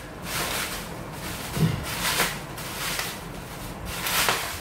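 Plastic bubble wrap rustling in several swells as it is pulled and torn off a fishing rod, with a dull thump about one and a half seconds in.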